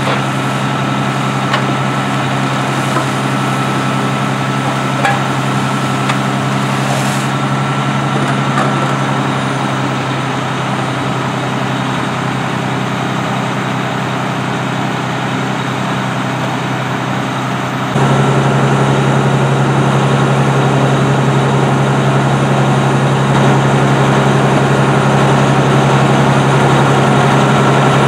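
Fire truck engine running steadily at the scene, a deep even drone with a thin high hum over it. About two thirds of the way through the drone jumps suddenly louder and fuller.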